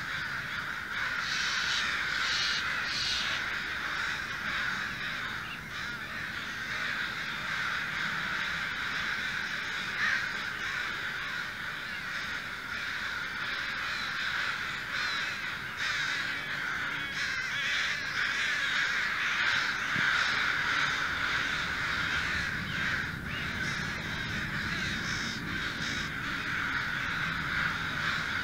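A large flock of American crows cawing and yelling without pause, their harsh calls overlapping into a dense, unbroken chorus.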